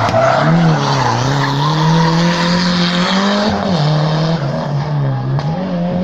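Rally car passing at speed on a special stage, its engine note rising and falling repeatedly as the driver lifts and gets back on the throttle through the bend, with a short sharp crack near the end.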